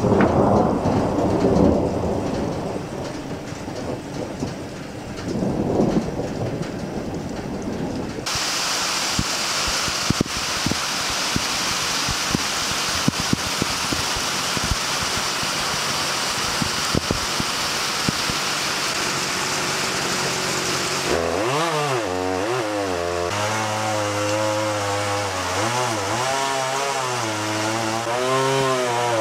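Thunder rumbling, swelling twice in the first eight seconds, then a steady downpour of heavy rain with scattered drips. About eight seconds from the end a two-stroke chainsaw engine comes in over the rain, its pitch rising and falling as it is throttled.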